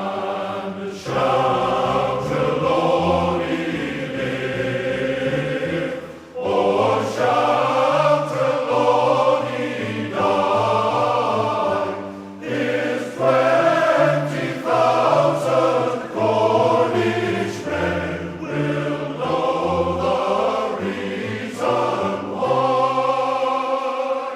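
Intro music: a choir singing in sustained phrases over a bass line, cutting off just before the end.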